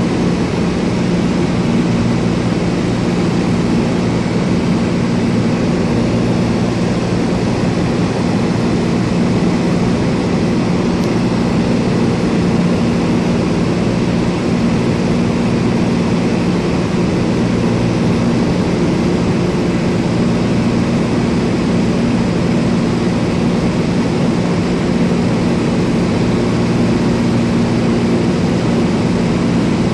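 Steady drone of a Cessna light aircraft's engine and propeller in level flight, with a constant low hum over broad rushing noise.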